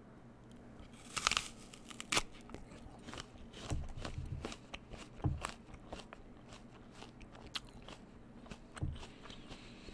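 Biting into a crisp Golden Delicious apple: a crunchy bite about a second in, then chewing with scattered small crunches.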